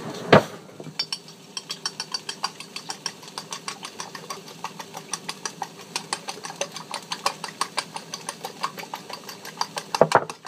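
Two eggs being beaten in a large ceramic bowl, the utensil clicking rapidly and evenly against the bowl, several strikes a second. A single loud knock comes just at the start.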